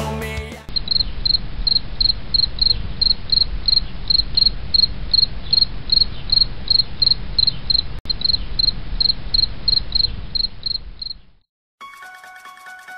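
Cricket chirping steadily, about three short high chirps a second, over a low hum; it stops near the end and a chiming, bell-like melody begins.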